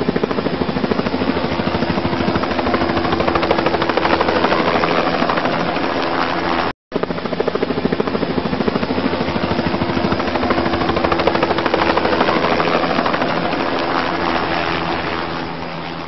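Helicopter rotors chopping steadily with a steady engine tone. It cuts out for an instant about seven seconds in and starts to fade near the end.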